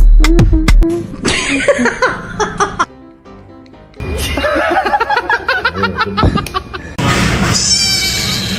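Music, with people laughing and some voices over it; a clear break comes about a second in and the sound changes again near the end.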